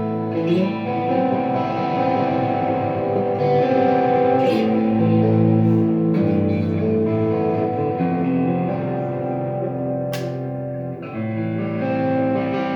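Xotic XSC-1 electric guitar played, with held notes and chords that change about once a second. A sharp pick or string click comes about ten seconds in.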